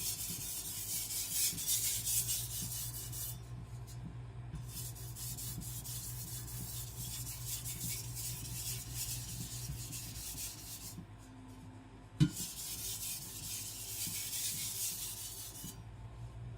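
Carbon-steel Chinese cleaver being stroked over a wet whetstone under only the blade's own weight, a light scraping rasp in three spells with short pauses: the last light strokes after a burr has been raised on both sides. A single short knock comes about twelve seconds in.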